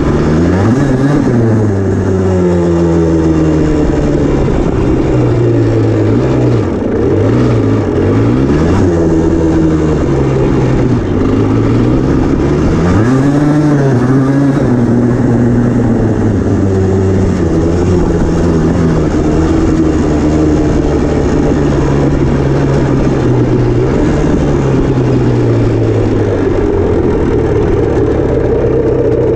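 Yamaha Blaster ATV's two-stroke single-cylinder engine under way, revving up and falling back over and over as the throttle is worked.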